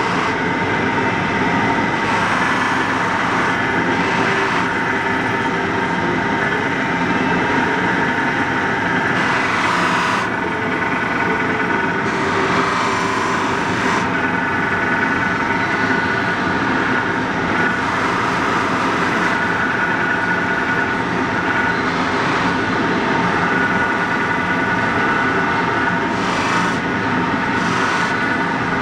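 Polishing machine's motor running steadily with a steady whine as its buffing wheel spins, while a folding-knife blade is held against the wheel; a hiss rises and falls several times as the blade is worked over the wheel.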